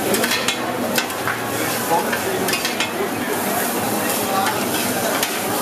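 Two metal spatulas scraping and clacking irregularly on a steel teppanyaki griddle as fried rice is tossed and chopped, over a steady sizzle of frying.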